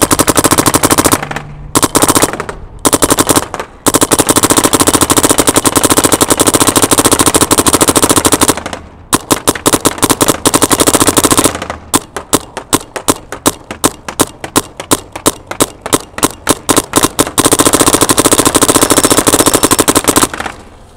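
Dye M3s electronic paintball gun firing long, rapid strings of shots, many a second, with brief pauses between strings. Past the middle the fire slows to separate shots for a few seconds, then a last fast string near the end.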